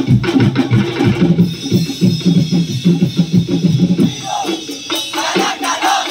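Drum-heavy dance music with a dense, driving beat. About four seconds in the drumming thins and a group of voices shouts together.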